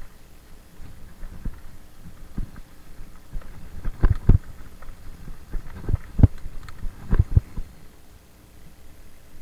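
Mountain bike rolling over a dirt singletrack, heard through a camera mounted on the bike: a low rumble with irregular sharp knocks and rattles as it jolts over bumps. The heaviest knocks come about four seconds in and again around six and seven seconds.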